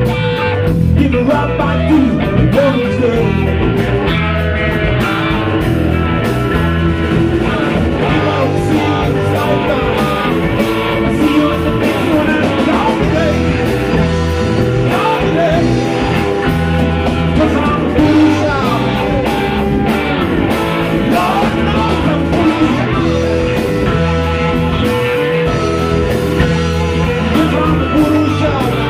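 Live blues-rock band playing: two electric guitars over electric bass and drums.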